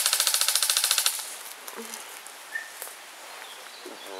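Airsoft gun firing a full-auto burst: a fast, even string of sharp clicking shots, about fifteen a second, that stops about a second in.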